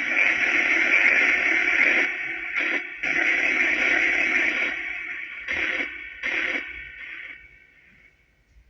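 Spirit box app's white noise played through echo and reverb: a steady hiss brightest in the upper-middle range. It drops out briefly a few times and fades away near the end.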